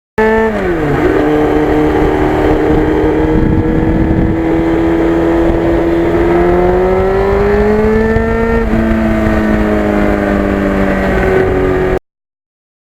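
1991 Yamaha FZR1000's inline-four engine on the move. The revs fall in the first second, hold steady, climb for about two seconds and then drop sharply about nine seconds in, then hold again before the sound cuts off suddenly near the end.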